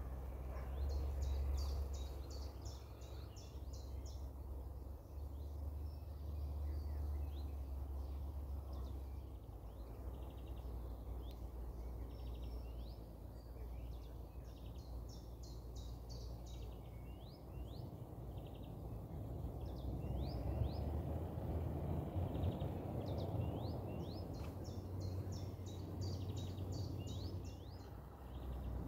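Songbirds singing in short bursts of quick, high repeated notes every few seconds, over a low rumble of wind noise.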